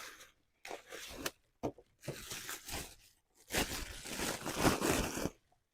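Packaging crinkling and tearing as a new replacement mower starter is unwrapped: several short bursts of rustling, then a longer, louder stretch near the end.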